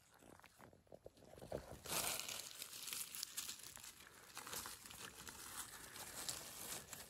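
Dry leaf litter and undergrowth rustling and crackling, with many small snaps. It is sparse at first and becomes a denser, louder rustle about two seconds in.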